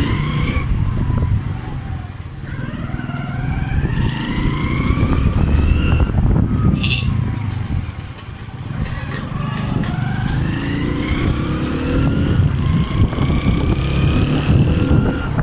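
Small motorcycle engine accelerating through the gears, its pitch climbing and dropping back at each shift, over a heavy rumble of wind on the microphone from riding. A brief high beep about seven seconds in.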